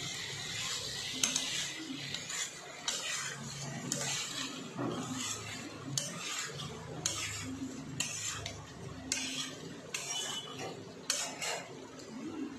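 A metal spoon scraping and clinking against a nonstick wok as pork pieces are stirred, in repeated irregular strokes.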